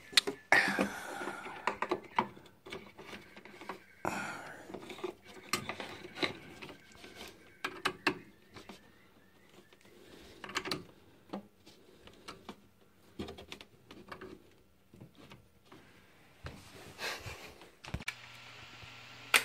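Scattered clicks, knocks and rubbing as a power cord and wiring are handled inside a wooden record-player cabinet. Near the end a steady low hum starts.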